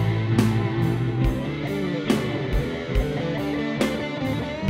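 Rock music: electric guitar over bass and a steady drum beat.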